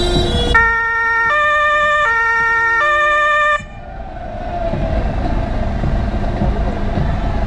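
Fire-service two-tone horn (Martinshorn) sounding two low-high cycles, each tone held under a second, then cutting off abruptly. A low vehicle engine and road rumble then fills the rest, slowly growing louder.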